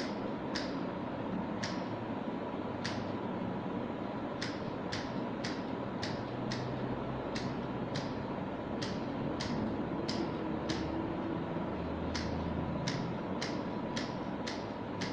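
A series of short, sharp clicks, irregularly spaced at about one to two a second, over a steady background hiss.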